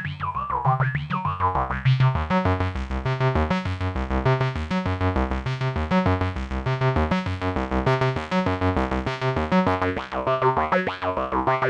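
Modular synthesizer patch through the RYK Modular Night Rider module, playing a fast sequenced run of pitched notes over a pulsing bass line. It has gliding, vowel-like formant sweeps near the start and again near the end.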